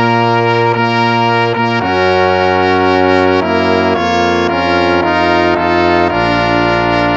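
Instrumental hymn played with a brass sound, in held chords that change about every half second.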